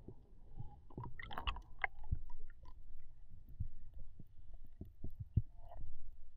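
Underwater sound heard through an action camera's waterproof housing: a constant low rumble with many scattered short clicks and knocks.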